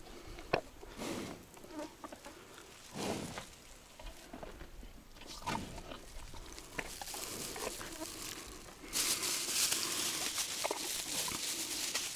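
An animal close by, giving a few short breathy sniffs among scattered small clicks and rustles; about nine seconds in a steady hiss sets in.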